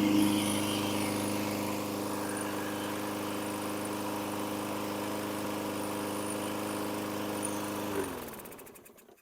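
Toro Recycler Smart Stow walk-behind mower's 7.25 hp engine running steadily, then shut off about 8 seconds in, its pitch falling as it spins down to a stop.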